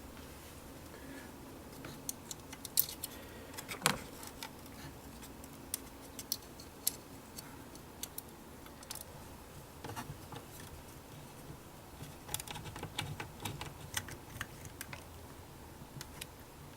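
Faint, scattered clicks and light metallic ticks of a screwdriver driving the last mounting screw into a hard drive inside a DVR case.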